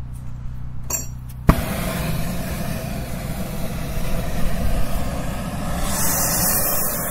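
A long-handled gas torch lit with a sharp pop about a second and a half in, then burning with a steady rushing hiss. A steady engine idle hums underneath.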